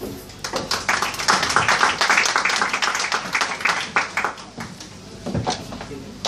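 Audience applause: many hands clapping, building about half a second in and dying away after about four seconds, with a couple of separate knocks near the end.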